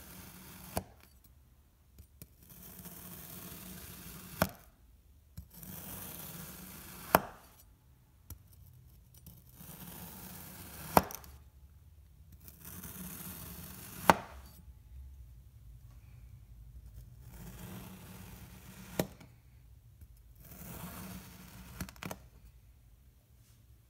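A kitchen knife slicing through a dome of kinetic sand on a plastic cutting board. There are about seven cuts, each a grainy, crunchy hiss as the blade sinks through the packed sand, ending in a sharp tap as it meets the board.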